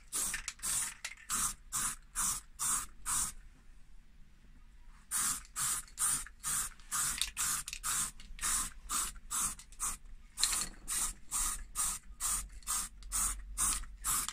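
Aerosol spray paint can hissing in short, quick bursts, about three a second, with a pause of about two seconds a few seconds in.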